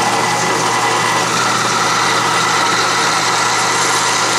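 Drill press running steadily while its bit cuts a quarter-inch clearance hole through a cast-aluminum part. The cutting noise grows a little brighter from about a second in as the bit feeds into the metal.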